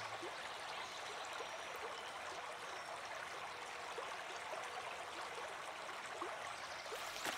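Small, shallow mountain stream running steadily over gravel, a soft, even rush of water. A brief click near the end.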